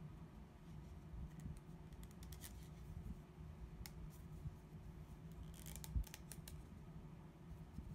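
Light plastic clicks and rubbing as a diamond-painting drill pen is handled and its soft coiled grip is worked along the barrel, with a cluster of clicks and a dull knock about six seconds in.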